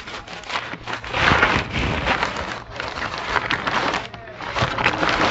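Crackling rustle and scraping of packaging as a fishing rod in a long black sleeve is drawn out of a cardboard shipping box, coming in uneven surges.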